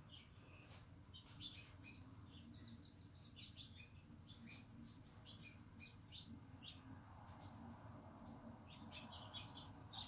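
Small songbirds chirping faintly in many quick, short calls, heard through window glass, over a low steady hum.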